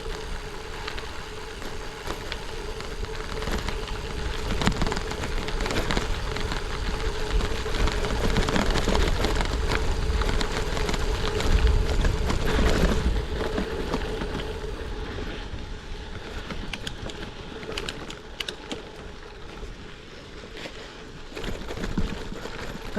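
Gravel bike riding: tyres rolling and crunching over gravel and rocks, with wind rushing over the GoPro microphone and a steady hum underneath. The noise swells to its loudest about twelve seconds in, then eases off.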